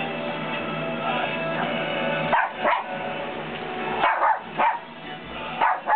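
Background music with steady held tones, joined from about two seconds in by several short, sharp, high-pitched barks and yips from Shih Tzu puppies at play.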